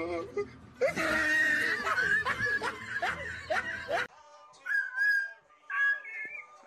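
A person laughing in short repeated bursts. About four seconds in, the sound cuts to a white cockatoo's short pitched calls.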